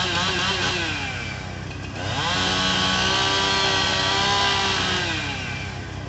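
Chainsaw running at high revs, easing off about a second and a half in, then revving back up and held steady at full throttle for about three seconds as it cuts, easing off again near the end.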